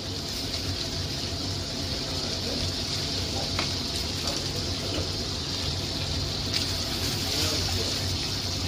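Diced bacon frying in butter in a pan, a steady sizzle, with a few light taps of a spoon or spatula on the pan around the middle.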